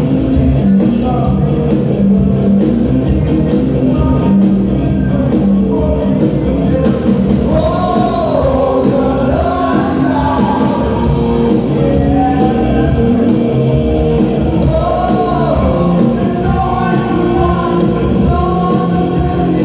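A live band plays loud amplified music through a PA system, with a steady drum beat. A singer's voice comes in about seven seconds in and carries the melody to the end.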